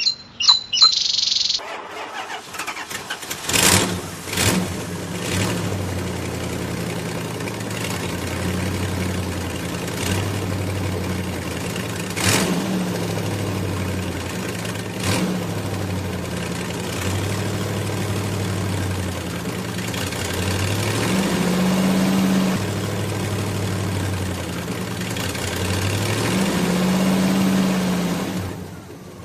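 Tractor engine sound starting up, then running with its pitch stepping up and down, and revving up twice near the end. Brief high chirps come at the very start, and a few sharp clicks fall early on the engine sound.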